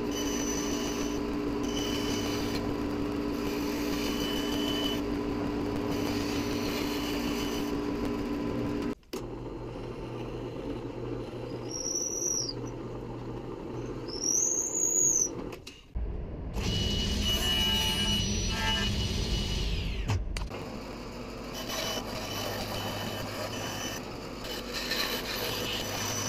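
A bandsaw running and cutting plywood, then a drill press running, with two short high tones that rise and fall, and a louder rough stretch of drilling into the plywood, then the bandsaw cutting again; each change is abrupt.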